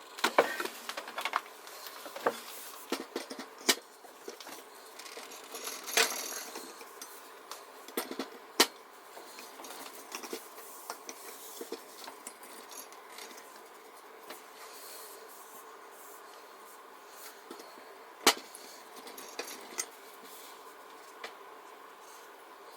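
Brass and steel parts of a Coleman 200A gasoline lantern and small hand tools clinking, clicking and tapping as the lantern is put back together by hand. The clicks come in scattered clusters, busiest in the first ten seconds, with a single sharp click about eighteen seconds in.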